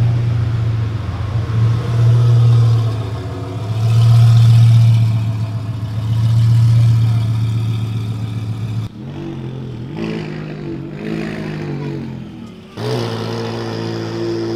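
Lamborghini Huracán STO's naturally aspirated V10 running at a low, steady pitch, swelling louder three times as it pulls away. About nine seconds in the sound cuts to a second supercar engine, a McLaren, which gets louder again near the end as it drives off.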